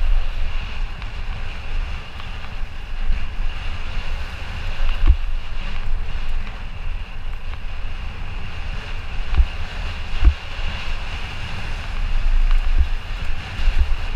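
Wind rushing over the on-board camera's microphone as a Santa Cruz Nomad mountain bike descends a dirt singletrack at speed, with a steady rumble from the tyres and frame over the rough ground. Several sharp knocks stand out, the loudest about five and ten seconds in, as the bike hits bumps.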